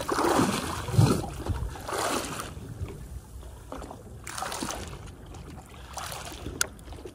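Water splashing and sloshing against a boat's side in short irregular bursts as a large flathead is held at the surface, the loudest splash about a second in and a sharp click near the end.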